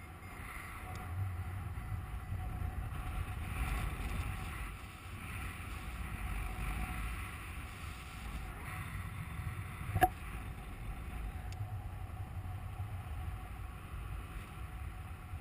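Airflow rushing over the camera microphone of a paraglider in flight, a steady low rumble that swells and eases, with one sharp click about ten seconds in.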